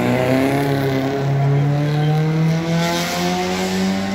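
Audi S1 Quattro rally car's turbocharged five-cylinder engine running hard under load, its pitch climbing steadily as the car accelerates.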